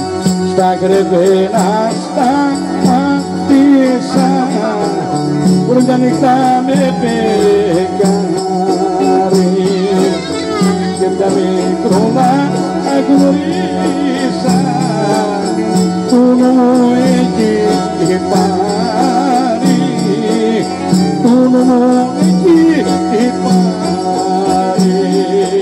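Traditional Greek folk music with a wavering, ornamented melody over steady lower notes and a rhythm accompaniment.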